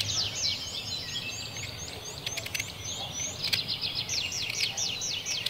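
Birds chirping in rapid series of short, high, descending notes, with a few sharp clicks in the middle.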